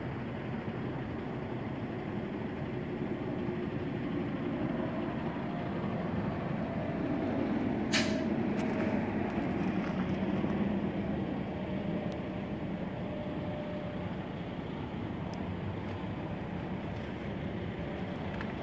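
Steady rumble of road traffic, with a heavy vehicle passing and swelling louder between about seven and eleven seconds in. A single sharp click comes about eight seconds in.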